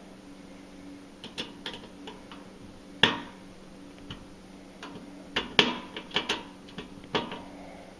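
Hand screwdriver tightening screws on a metal generator interlock switch plate: scattered small clicks and metal taps, with one sharp click about three seconds in and a cluster of clicks a little later.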